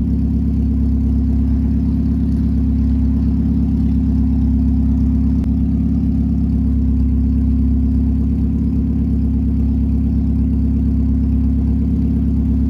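Car engine running steadily at constant revs, a loud, unchanging drone.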